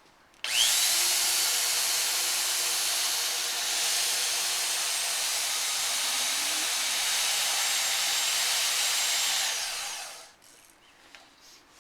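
Electric drill boring into wood with an auger bit: the motor starts with a rising whine about half a second in, runs steadily under load for about nine seconds, then winds down and stops about ten seconds in.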